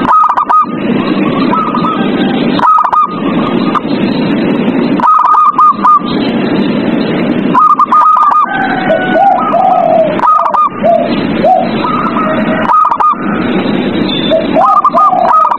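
Zebra doves (perkutut) cooing: clusters of quick, stuttering coos repeat about every two and a half seconds, with a lower-pitched dove answering in the middle and again near the end. The calls sit over a constant rough background noise.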